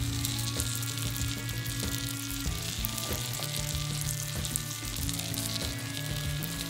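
Chicken thighs sizzling and crackling on a copper grill mat as teriyaki sauce is basted onto them with a silicone brush, with background music underneath.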